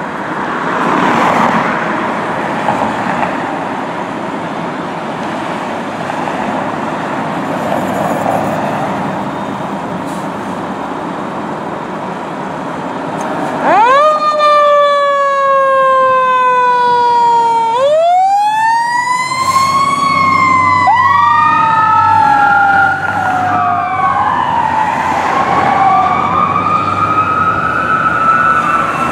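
Road traffic passing, then about 14 seconds in an emergency siren starts with a quick rise and a slow falling wail that repeats. A second siren joins a few seconds later, and the two wail over each other with a low engine hum beneath: a fire engine and a medic ambulance leaving the station Code 3, with lights and sirens.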